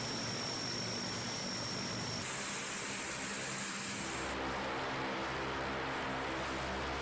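Turboprop engines of a Lockheed C-130H Hercules running on the ground: a steady rush with a high thin whine at first. The sound changes about two seconds in, and again about four seconds in, where a deeper hum comes in.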